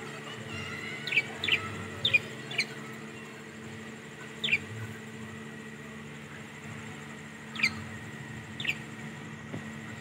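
Budgerigars in an aviary giving short, sharp chirps that drop in pitch: a quick cluster of four or five in the first few seconds, then single chirps spaced several seconds apart. A steady low hum runs underneath.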